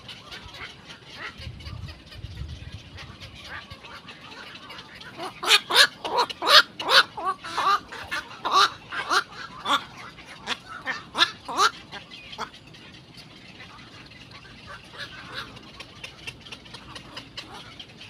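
Black-crowned night heron giving a run of about fifteen short, hoarse calls, two or three a second. The run starts about five seconds in and stops about seven seconds later.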